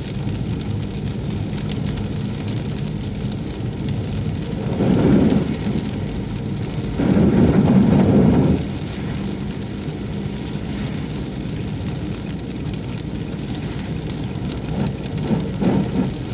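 Steady low road and engine rumble of a car driving in heavy rain, with rain noise over it. It swells louder twice, briefly about five seconds in and for over a second around eight seconds, then again near the end.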